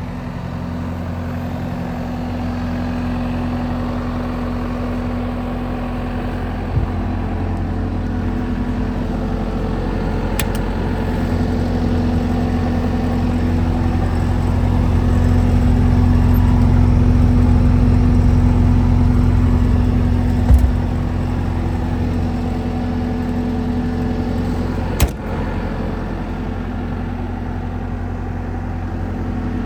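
Bobcat T190 skid steer loader's turbo diesel engine running steadily, getting louder for a while in the middle and easing back. A few short sharp clicks and knocks come through it.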